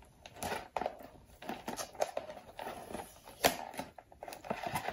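A small cardboard box being handled and worked open by hand: scattered clicks, scrapes and rustles of the card, with one sharper click about three and a half seconds in.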